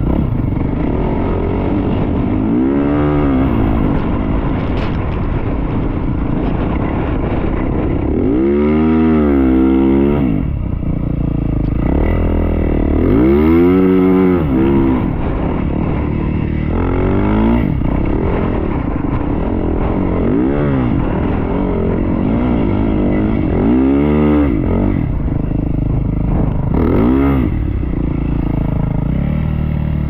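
Yamaha YZ450F four-stroke single-cylinder dirt bike ridden through soft dune sand, the engine revving up and dropping back over and over as the throttle is opened and closed.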